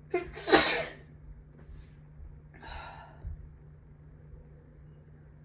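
A man sneezes once, a loud sudden burst about half a second in, from an allergy fit. A softer noisy breath follows about two seconds later.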